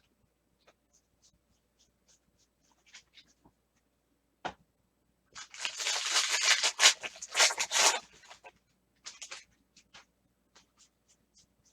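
Foil wrapper of a baseball card pack being torn open: a crinkly tearing rustle lasting about two and a half seconds, starting about five and a half seconds in. Soft scattered clicks of cards being handled come before and after it.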